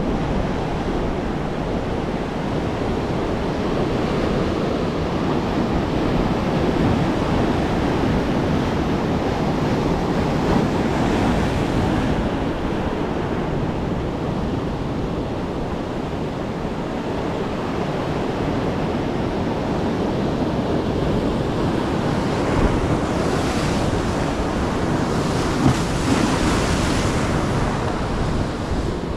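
Ocean surf breaking and washing on a sandy beach, with wind on the microphone. A wave's wash hisses louder near the end.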